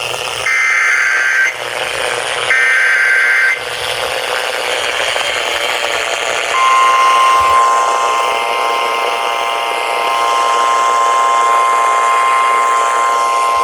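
Emergency Alert System data bursts (the SAME header that opens a new weather-radio warning): two harsh one-second warbling tone bursts a second apart over radio hiss. About six and a half seconds in, the steady National Weather Service 1050 Hz warning alarm tone comes on and holds.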